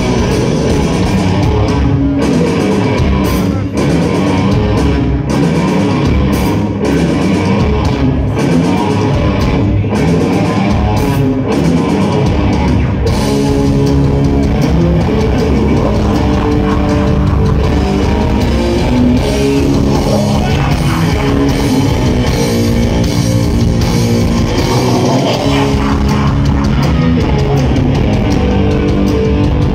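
A heavy metal band playing live and loud: distorted electric guitar riffing over bass and a drum kit, with sharp drum hits most distinct in the first half.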